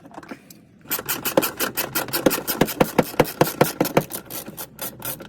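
Hand ratchet clicking quickly and evenly, backing out a bolt.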